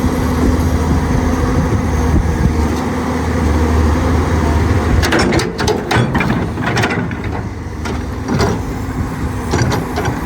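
Caterpillar 320C excavator's diesel engine running steadily. About halfway through comes a run of sharp metallic clanks and knocks from the working machine.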